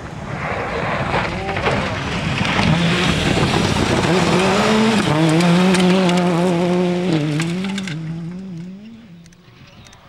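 Toyota Corolla WRC rally car coming flat out on gravel and passing close by, its turbocharged four-cylinder engine building to a loud peak with short dips in pitch at gear changes, over the clatter of spraying gravel. The engine sound fades quickly near the end as the car goes away.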